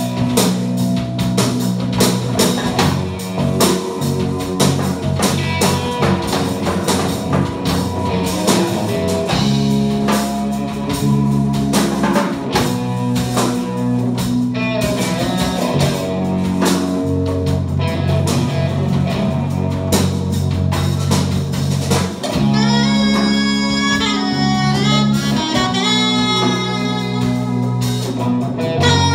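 A small live band playing an instrumental blues-rock jam, with electric guitar, drum kit and a hand drum over a steady bass line. Over the last several seconds a higher lead melody stands out over the band.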